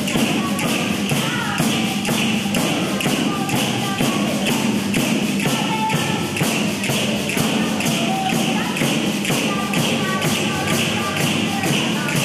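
Hand-held frame drums with jingles beating a fast, even dance rhythm, about four strokes a second, each stroke a thud with a jingle rattle, with a few short melodic notes over them.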